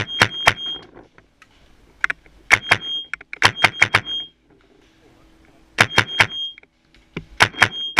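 Proto Reflex paintball marker firing in rapid volleys of three to six shots, about four to five shots a second, with short pauses between volleys and a high ring carrying through each one.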